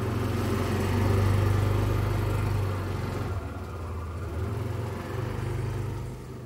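A motor running steadily with a low hum, with a hiss above it that drops away about halfway through.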